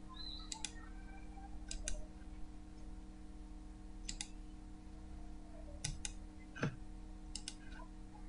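Computer mouse clicking about five times, each click a quick pair of sharp ticks, over a steady low electrical hum.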